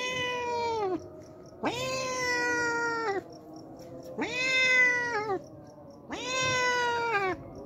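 A hungry stray cat meowing four times, each meow long and drawn out, holding its pitch and then dropping at the end: begging for food.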